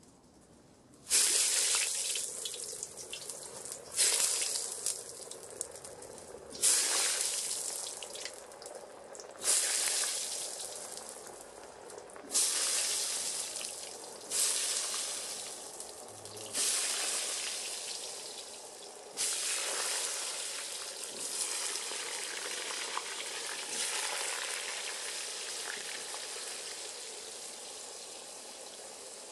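Potato pieces dropped one by one into hot oil in a cast-iron kazan. Each drop sets off a sudden loud sizzle that fades, about eight times, every two to three seconds. After the last drop the oil keeps frying with a steady bubbling hiss that slowly quietens.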